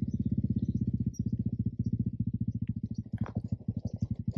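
Motorcycle engine running at low revs, an even beat of about a dozen pulses a second.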